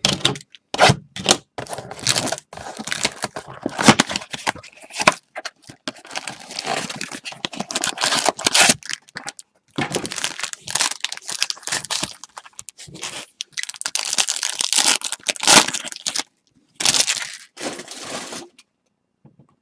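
Wrapping and foil packs of a 2020 Bowman baseball card blaster box being torn open and crinkled by hand, in irregular bursts of tearing, rustling and crackling that stop shortly before the end.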